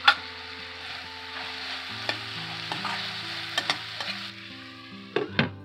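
Chopped tomatoes, capsicum and greens sizzling in a stainless steel kadai while a metal spatula stirs them, with sharp clicks of the spatula against the pan. The sizzle fades about four seconds in.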